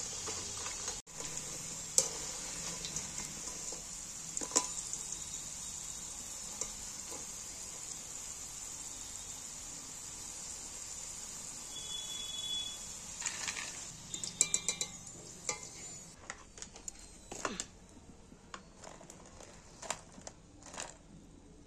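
Potato sticks deep-frying in hot oil in a metal kadai, a steady high sizzle, with a metal spatula scraping and knocking against the pan as they are stirred. Later the sizzle fades and a wire strainer basket clinks and scrapes as the fries are lifted out and tipped onto a plate.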